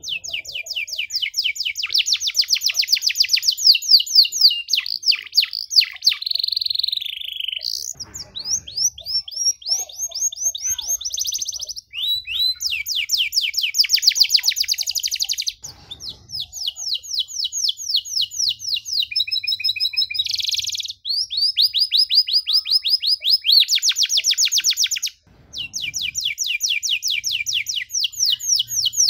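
Domestic canary singing long, fast trills: rapid runs of repeated high notes in phrases several seconds long. The pace of the notes changes from phrase to phrase, with short breaks between them.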